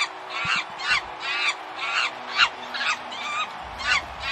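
Overdubbed animal 'laughing' sound effect: a steady run of short, high calls, about two a second.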